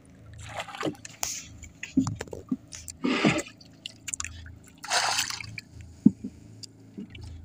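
Water splashing and sloshing against the side of a small outrigger boat in short bursts about every two seconds, as a wet fishing handline is hauled in by hand over the gunwale.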